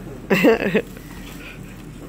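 A short untranscribed vocal sound, about half a second long, a little way in, over a low steady background.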